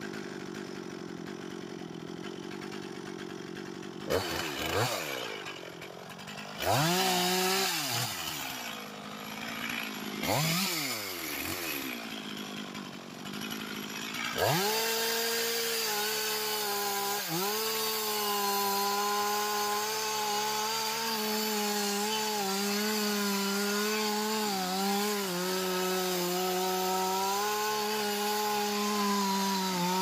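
Two-stroke chainsaw running low, revved up and down three times in quick blips, then held at full throttle from about halfway through, its pitch dipping slightly now and then as it cuts into anjili wood, and dropping away right at the end.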